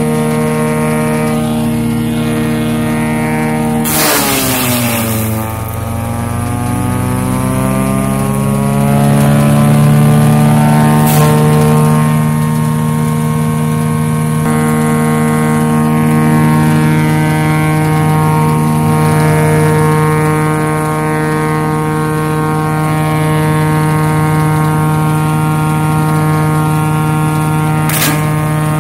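White diesel engine of a 1968 Asplundh 6-inch wood chipper running steadily. A few seconds in, a sharp burst of noise comes and the engine's pitch dips, then climbs back up over about five seconds. Two brief sharp clicks come later.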